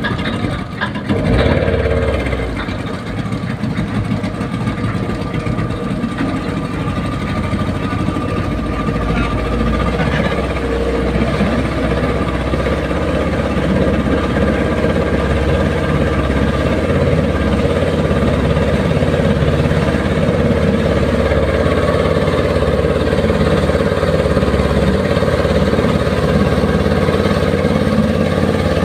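A small boat's engine running steadily under way, with a constant hum that grows a little louder over the first dozen seconds.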